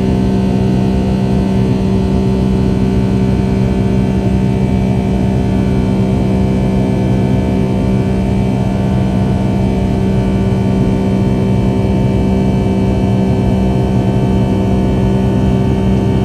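Boeing 757-200's twin jet engines heard from inside the passenger cabin: a loud, steady drone with a strong low hum and a rushing hiss, unchanging throughout.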